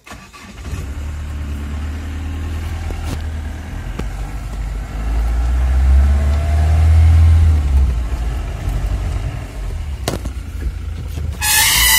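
A vehicle's engine running with a low rumble that swells louder about five to eight seconds in, with a few sharp knocks. Near the end a wild elephant lets out a loud, high-pitched trumpet.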